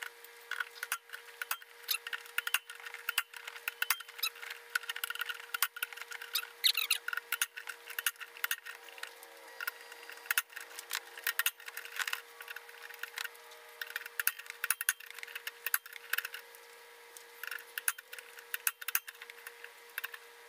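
Hammer repeatedly striking a hand impact driver seated on the fuel-pump plate screws, a run of sharp, irregular metallic knocks and clicks with a faint steady hum underneath. The screws are stuck fast with red Loctite.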